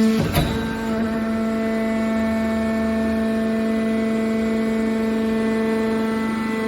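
Metal recycling press baler running with a steady machine hum, with a single loud knock just after the start.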